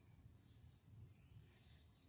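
Near silence: faint background room tone.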